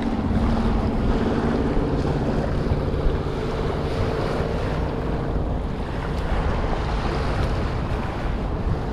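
Wind buffeting the microphone over small waves washing onto a sandy shore, a steady rush without any distinct events.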